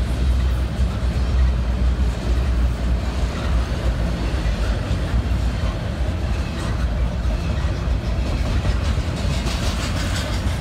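Double-stack container train cars rolling past, a steady low rumble of wheels on rail.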